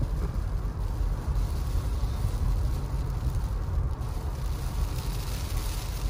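Steady low rumble of a car driving slowly on a snow-covered road, heard from inside the cabin: engine and tyre noise.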